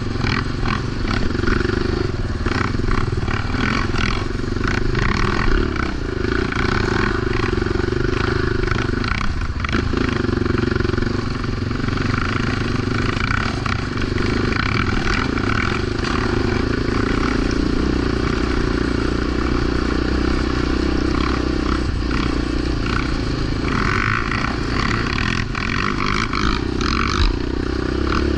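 Yamaha Raptor 700 quad ATV's single-cylinder four-stroke engine running steadily, with many short knocks and rattles over it.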